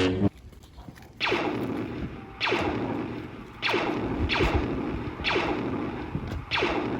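Sci-fi blaster sound effects: six laser "pew" zaps, each a quick sweep falling in pitch, fired at uneven intervals.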